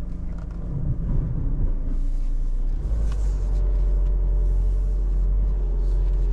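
Isuzu D-Max's 3.0-litre turbo-diesel four-cylinder running in a steady, deep drone while the ute drives over the off-road course, growing louder about three seconds in and holding there.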